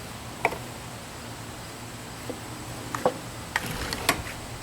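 A few scattered light clicks and taps from rain-gutter perch pieces being handled and set in place, over a steady low hum.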